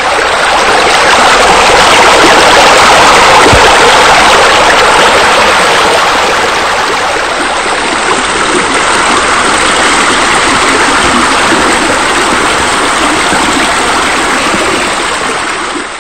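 Loud, steady rush of falling water, like a spa spilling over into a pool.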